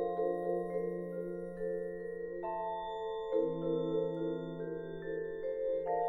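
A percussion orchestra of marimbas and other mallet keyboard instruments plays slow held chords with a fast pulsing shimmer over a low bass note. The harmony shifts to new chords several times.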